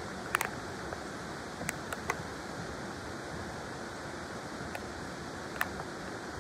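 River water flowing steadily, with a few sharp ticks about half a second, two seconds and five and a half seconds in.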